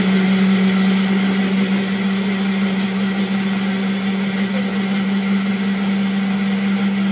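Ninja blender running steadily on low speed, puréeing carrots, Greek yogurt and pumpkin into a smooth mix, with an even motor hum that holds one pitch throughout.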